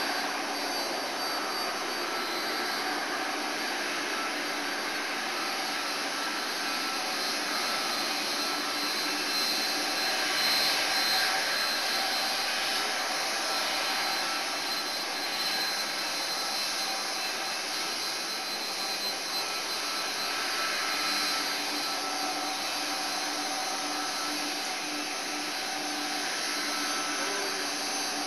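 Airbus A310-325's Pratt & Whitney PW4000 turbofan engines running at taxi power as the airliner rolls past: a steady jet whine, several high tones over a rushing noise, slightly louder about ten seconds in.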